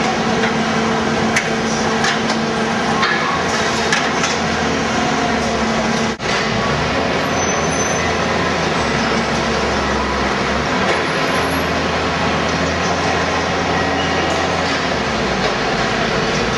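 Wool bale sorting machinery running: a steady mechanical hum and rumble from the conveyors and their drives, with a few sharp knocks. The sound drops out briefly about six seconds in, and the hum turns lower afterwards.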